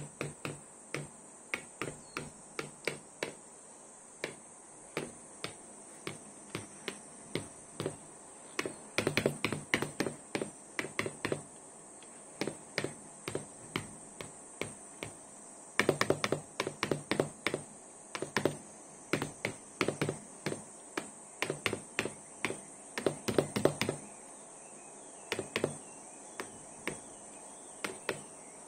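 Chukar partridge pecking at a laptop screen: sharp, irregular beak taps, some single and some in quick flurries, the flurries thickest through the middle. A faint steady high whine lies underneath.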